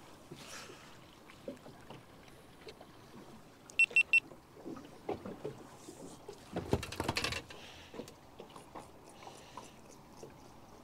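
Three short high electronic beeps about four seconds in, then a brief rattling burst about seven seconds in, over faint water sounds as a fish is played on a spinning reel beside a boat.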